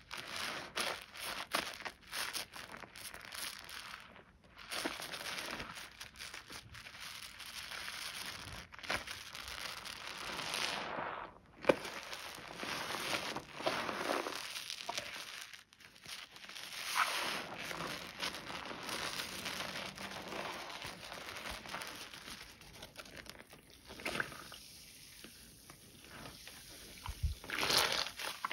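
Soaked, mushy bar soap being lathered into thick foam: wet squishing and crackling foam in irregular strokes with short pauses.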